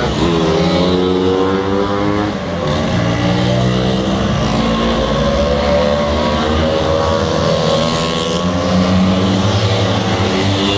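Several motor scooter engines pulling away one after another, each rising in pitch as it accelerates past, with more than one running at once.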